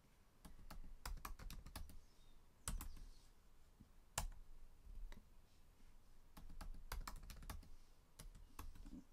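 Typing on a computer keyboard: a password is keyed in at a prompt in short runs of keystrokes, with a few sharper single key presses between the runs.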